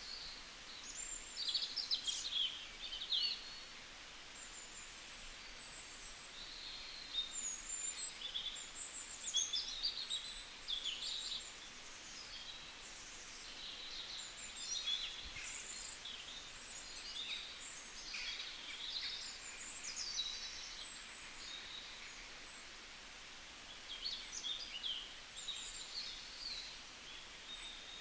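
Several songbirds chirping and warbling over a steady background hiss, with busier bursts of calls about two seconds in, around eight to ten seconds in, and near the end.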